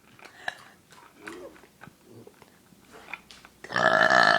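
A girl's long, loud burp begins about three and a half seconds in, low and buzzy. Before it there are only faint clicking mouth and throat noises.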